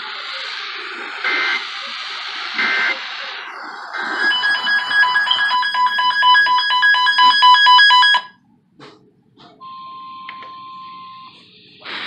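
Weather alert radio sounding its alarm for a flash flood warning. After a few seconds of radio hiss with two short beeps, a loud, rapid electronic beeping of several pitches sets in and cuts off suddenly about four seconds later. A few clicks and a short, quieter steady tone follow.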